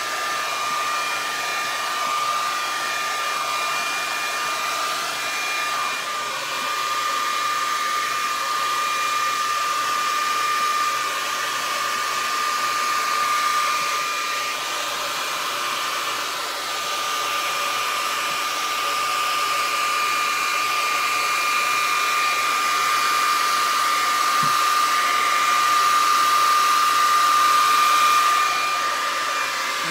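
Handleless hair dryer running steadily, a rush of air with a constant high whine from its motor, blowing acrylic paint across a canvas. Its loudness swells and dips as it is moved over the canvas, peaking about 28 seconds in before dropping off.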